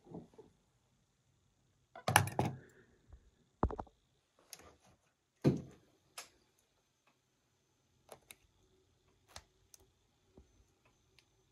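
Scattered clicks, taps and knocks from hands handling tools and cables, the loudest about two seconds in and again around five and a half seconds in; the CNC router itself is not running.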